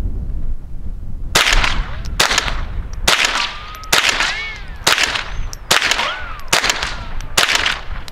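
Henry AR-7 semi-automatic .22 LR rifle firing Federal Auto Match rounds: eight sharp shots at a steady pace of a little under one a second. After several of the shots comes a short whistling glide that rises and falls.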